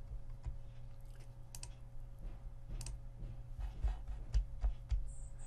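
Scattered light clicks of a computer mouse and keyboard as a screen share is being set up, over a low steady hum.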